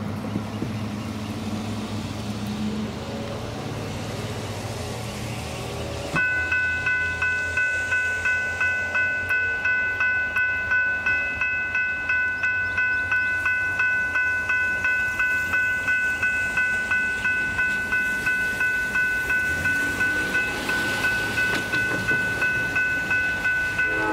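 Railroad crossing bell, a GS Type 3E electronic bell, starting suddenly about six seconds in and ringing in fast, even, repeating dings: the crossing has activated for an approaching train. Before it starts there is only a low, steady rumble.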